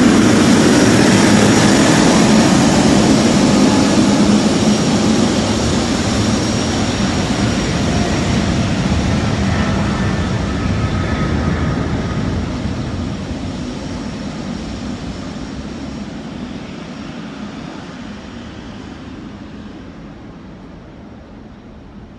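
Jet airliner's engines running, a loud rumble with a thin high whine over it, fading steadily as the aircraft taxis away.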